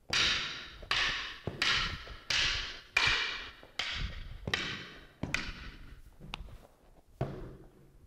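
Wooden arnis sticks clacking together in a two-person stick drill: about ten sharp strikes, roughly one every 0.7 seconds, each with a brief ring, the last few quieter.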